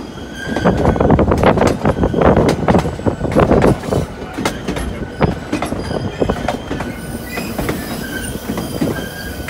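Narrow-gauge passenger train running on the White Pass & Yukon Route, heard from an open car platform: wheels clattering and knocking over the rails, loudest in the first half, with short high metallic wheel squeals that come more often near the end.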